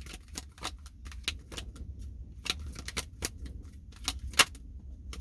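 Tarot cards being shuffled and handled: a run of sharp, irregular clicks and snaps, several a second, the loudest a little over four seconds in. They stop shortly before the end.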